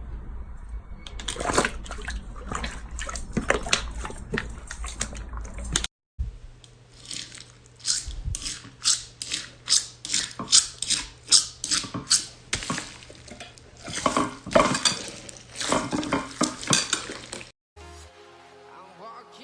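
Slime being squeezed and poked by hand: quick runs of wet clicks, pops and squelches, broken by a brief gap about six seconds in. Background music takes over near the end.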